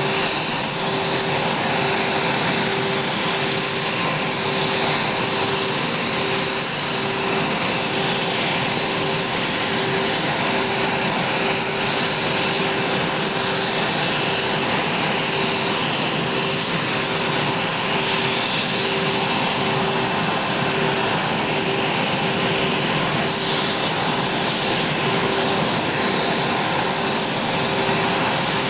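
Aircraft turbine engine running steadily on the ramp: a constant rushing whine with a thin high whistle over it, and a low hum that pulses a little more than once a second.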